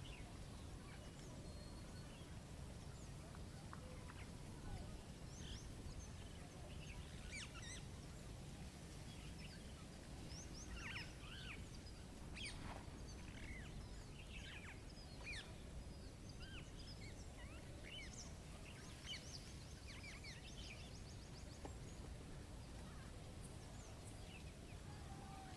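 Songbirds chirping and twittering in many short, quick calls, thickest around the middle, over a steady low rumbling background noise.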